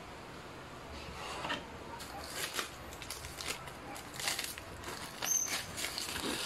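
Brown paper bag rustling and crinkling in irregular bursts as a corn dog on a wooden stick is pulled out of it, with a brief high squeak near the end.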